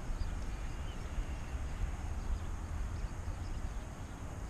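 Wind buffeting the microphone as a gusty low rumble, with faint high chirps in the background.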